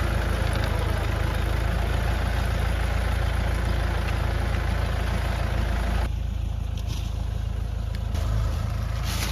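Farm tractor engine running steadily, working the machine that digs sweet potatoes out of the field. About six seconds in the higher-pitched noise drops away and the lower engine sound carries on.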